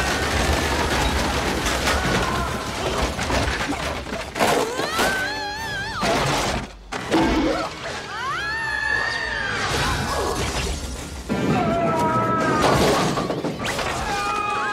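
Slapstick film soundtrack: crashing and shattering impacts mixed with people screaming and yelling, over background music, cut together from several short scenes.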